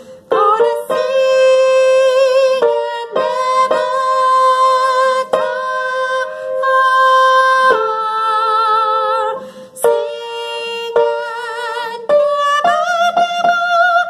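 A woman's soprano voice singing a slow line of long held notes with vibrato, a brief break between each, the line stepping up higher near the end.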